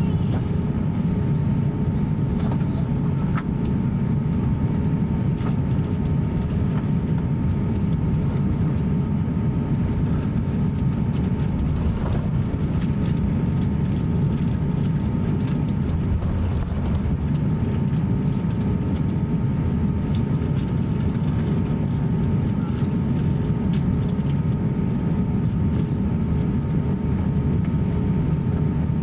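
Cabin noise of an Airbus A350-900 taxiing: a steady low rumble from the idling Rolls-Royce Trent XWB engines, with a thin steady whine running through it.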